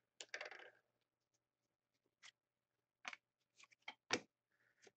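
Hockey trading cards being handled and shuffled by hand: a few short, soft clicks and rustles scattered through near silence, the sharpest a little after four seconds in.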